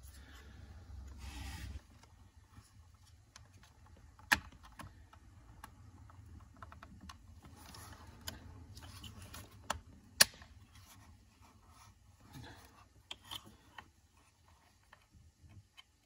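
Hands fitting a replacement plastic ignition switch assembly onto a 2005 Chrysler 300's steering column: faint handling rustle with a few sharp plastic clicks, the loudest about ten seconds in.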